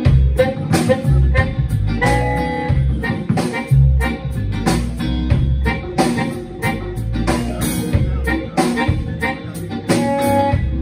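Live instrumental blues band playing a steady groove: electric guitar, vibraphone, harmonica, upright bass, drums and hand percussion together.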